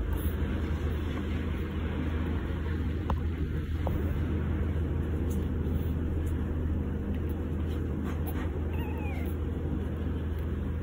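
A very young Pomeranian puppy gives a short high squeak that falls in pitch, about nine seconds in, over a steady low hum.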